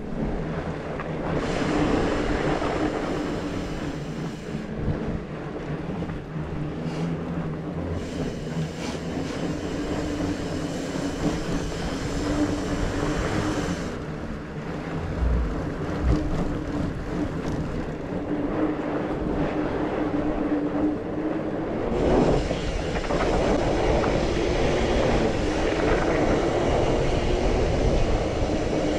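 Mountain bike riding a dirt singletrack trail: a continuous rumble of tyres rolling and the bike rattling, somewhat louder over the last several seconds.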